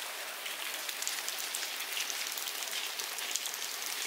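Steady rain falling on a thatched roof and wet ground, with many fine ticks of individual drops.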